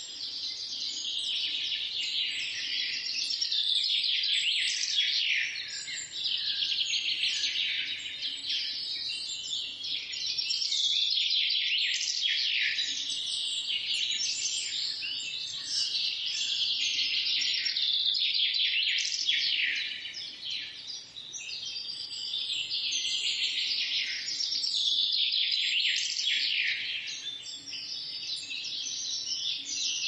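Small garden songbirds singing and chirping in a dense, continuous chorus of quick, overlapping high notes and trills, easing briefly about two-thirds of the way through.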